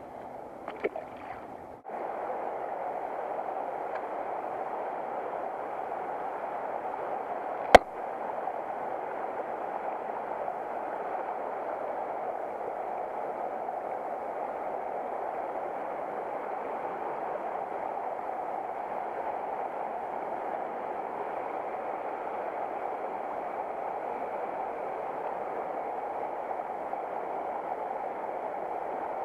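Steady rushing of a shallow creek riffle, with one sharp click about eight seconds in.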